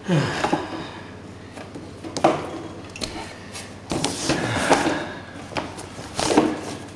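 Irregular knocks, bumps and scraping from electrical cable and wooden framing being handled, about half a dozen sharper knocks among the rustle, busiest a little past the middle.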